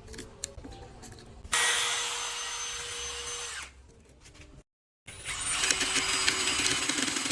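A power tool shaping wood into a dowel, starting suddenly with a steady whine about a second and a half in and dying down about two seconds later. After a brief gap, a second run starts and carries on. Light handling clicks come before the first run.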